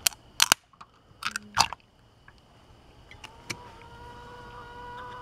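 Aluminium drink can's pull-tab being pried open with a toy-car can opener: a few sharp clicks and snaps as the tab cracks the lid open, the loudest about half a second and a second and a half in. A faint steady whine follows from about three seconds in.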